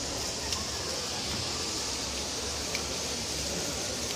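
A steady rushing hiss, strongest in the high range, with a couple of faint ticks.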